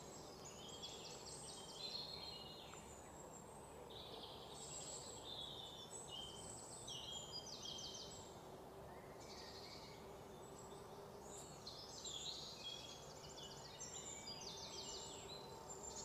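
Birds chirping and trilling in quick high bursts every second or two, over a faint steady hum.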